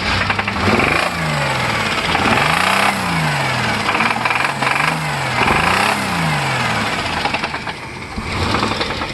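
1998 Chevy Blazer's 4.3 Vortec V6 revved up and let back down four times, then idling, with a loud bottom-end knock: a worn crankshaft journal that has knocked its bearing out, and the knock is getting worse.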